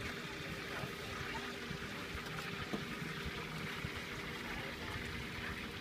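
Steady street-market background noise: a low hum with an even wash of sound and a faint click or two.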